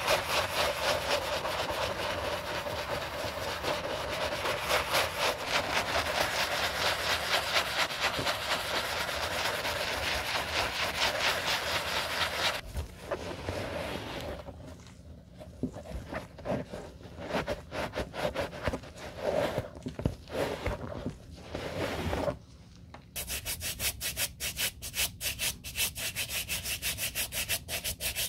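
Bristle shoe brush scrubbing cleaning foam over a white leather sneaker in quick, even strokes. About halfway through it changes to slower, patchier rubbing and wiping with a terry towel, then brisk brushing starts again about 23 s in.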